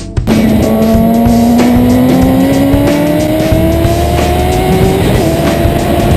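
2009 Kawasaki ZX-10R's inline-four engine accelerating out of a corner, its note climbing steadily in pitch for about five seconds, with a brief dip about five seconds in before it pulls on. Music cuts off just after the start.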